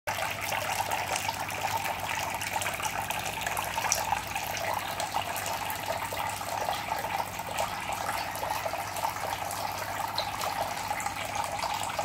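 Several thin streams of water from a small homemade bottle fountain falling into a shallow tub of water and pebbles, splashing and trickling steadily. A faint steady low hum sits underneath.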